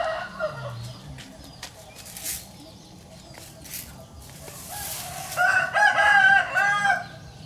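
A rooster crowing once, a long call of several linked notes starting about five seconds in; it is the loudest sound here.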